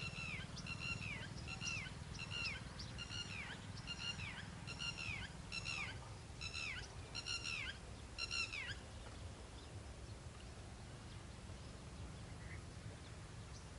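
A bird calling over and over: short, high notes that each slide downward, about one every three-quarters of a second, stopping about nine seconds in. A steady low hum runs underneath.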